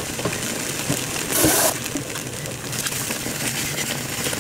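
Thick cream risotto simmering and sizzling in a frying pan as it reduces, with a wooden spatula stirring through it and making small clicks against the pan. There is a brief louder hiss about a second and a half in.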